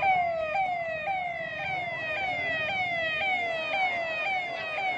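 Electronic siren sounding a repeated falling sweep, about two a second, each tone dropping in pitch and then jumping back up.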